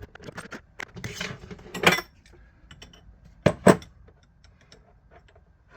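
Metal hand tools and pipe fittings being handled, with small clinks and a scrape, then two sharp metallic knocks close together about three and a half seconds in.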